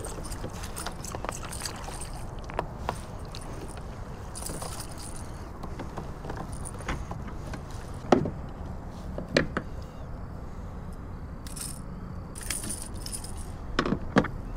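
Handling noise of fishing gear in a kayak: scattered sharp knocks and light rattles, a few louder thumps about eight and nine seconds in and a double knock near the end, over a steady background noise.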